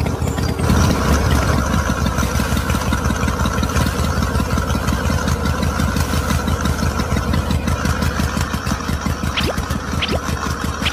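Small motor running steadily with a rapid, even pulse, belt-driving a miniature grinding mill.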